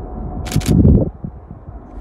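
A camera shutter firing two frames in quick succession about half a second in, over a steady low outdoor rumble that swells loudly for about half a second right after the clicks and then eases off.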